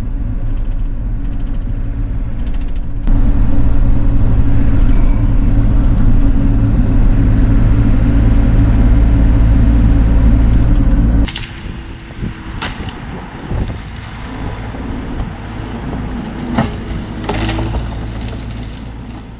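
Bobcat E42 mini excavator's diesel engine working hard. It gets louder about three seconds in and eases back just past halfway. After that come several sharp cracks of dead wood snapping as the machine breaks the tree.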